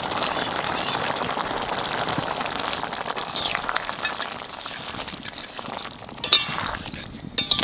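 Bamboo shoot and dried fish curry bubbling and sizzling in a metal kadai as rice-flour water is poured in; the sizzle fades over the second half. A metal spatula stirs the curry, clinking against the pan a couple of times near the end.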